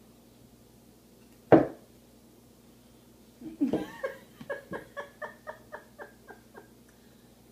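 One short, loud burp, then a person laughing in a run of about ten quick "ha"s that trail off over three seconds.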